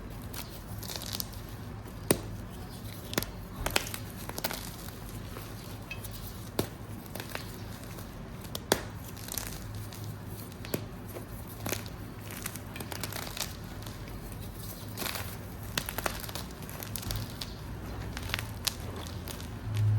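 Blocks of gym chalk being crushed into crumbles, giving irregular crisp crunches and crackles with a few sharper snaps. A low steady hum runs underneath.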